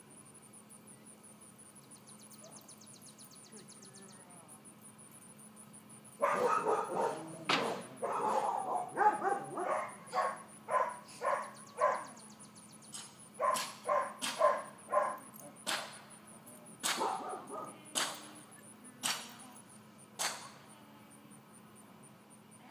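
Miniature dachshund puppy barking: a run of short, sharp, high barks that starts about six seconds in, comes fast at first, then grows more spaced out and stops near the end. A steady high insect buzz sits underneath.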